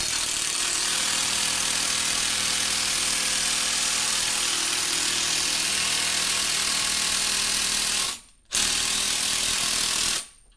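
Cordless impact driver hammering a lag bolt through a galvanized pipe handrail flange, running steadily for about eight seconds, pausing briefly, then running about two seconds more before it stops. The impact driver is worn out: the owner calls it about shot.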